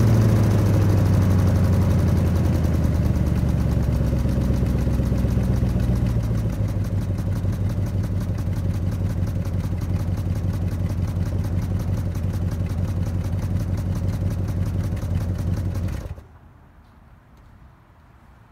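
A 1966 Plymouth Barracuda's 318 two-barrel V8 idles through the exhaust, its revs falling over the first few seconds to a steady idle. It is switched off about 16 seconds in and stops abruptly.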